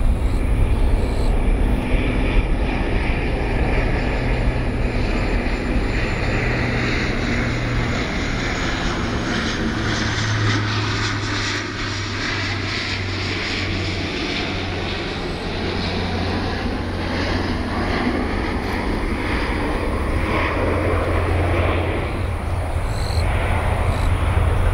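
Jet airliner's engines heard as it climbs away after takeoff: a steady, fairly loud rumble with a hiss that slowly sweeps up and down in pitch.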